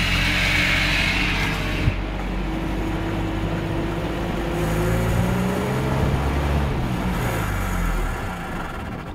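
Land Rover Series 109 engine running under load with a sharp knock about two seconds in; its pitch rises and falls, then the engine sound thins and sags near the end. The uploader takes this engine failure for water in the petrol.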